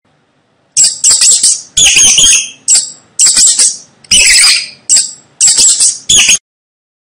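Mouse squeaking: quick runs of high-pitched squeaks in about five clusters, starting about a second in and stopping shortly before the end.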